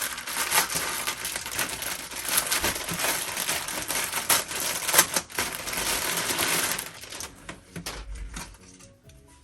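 Packaging being handled and unwrapped, with a busy crinkling and rustling full of small crackles that dies down after about seven seconds. Faint background music is left near the end.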